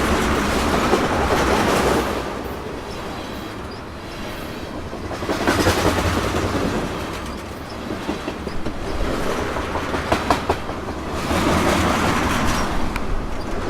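Freight train rolling along, its wheels clicking over the rail joints, the sound swelling and easing every few seconds.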